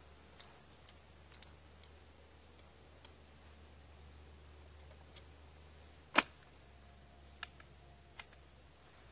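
Light metallic clicks from a Century Arms JW2000 double-barrel coach gun being handled, several times, with one much louder sharp snap about six seconds in.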